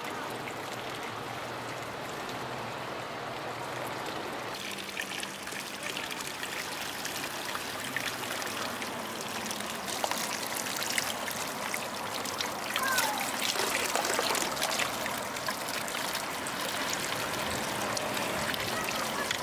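Hot-spring water running and trickling into a stone pool. From about five seconds in there is louder, irregular splashing as water is scooped and poured with a wooden ladle.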